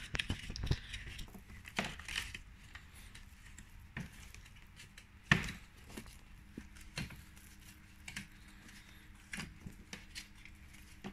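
Scattered clicks, knocks and rubbing as rubber grip strips are pulled out of the slots of an aluminium running-board step plate, with one sharper knock about five seconds in.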